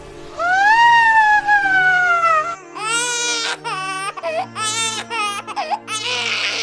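A high crying voice: one long wail that rises and then slowly falls, followed by a run of shaky, sobbing cries, over soft background music.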